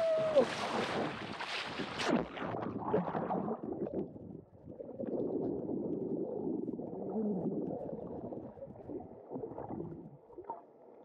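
Sea water splashing as the camera plunges in, then about two seconds in the sound turns muffled and low: water gurgling and rumbling heard through the submerged microphone.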